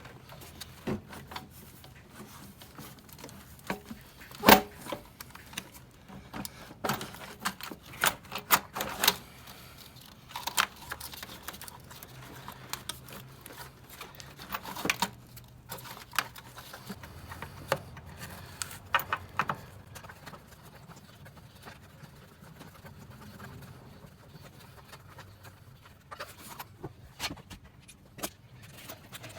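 Scattered metallic clinks, taps and knocks of hand tools, bolts and parts being handled during reinstallation of the intake manifold, with one sharper knock about four and a half seconds in, over a faint steady low hum.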